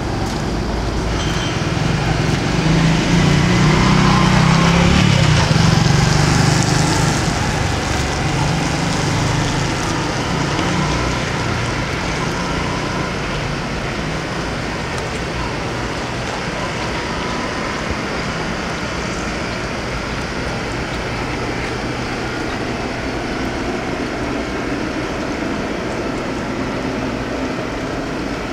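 City street traffic noise, with a vehicle passing close by, swelling and fading between about two and nine seconds in.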